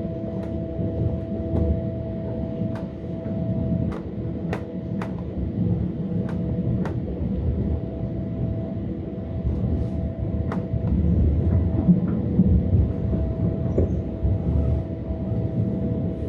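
Metra Electric electric gallery commuter car under way, heard from inside: a steady low rumble of wheels on rail under a constant electrical hum, with a dozen or so sharp, irregular clicks from the running gear.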